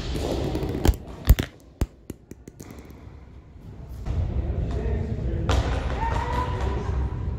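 A plastic pickleball bouncing on a hardwood gym floor: three sharp knocks about half a second apart, then a few lighter ticks, with a short echo. Hall background noise after about four seconds.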